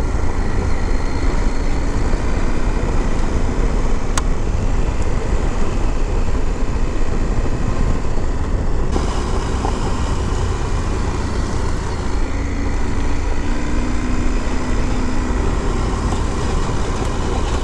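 Adventure motorcycle riding along a gravel desert track, heard from the bike: steady engine and tyre noise under a heavy, constant wind rumble on the microphone. The sound shifts slightly about nine seconds in.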